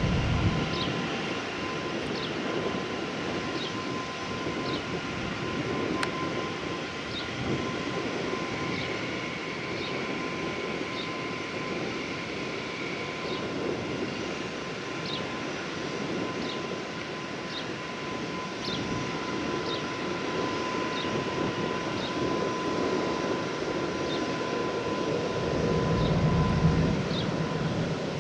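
Gulfstream G650 business jet's twin Rolls-Royce BR725 turbofans running with a steady whine, with a deeper rumble building near the end.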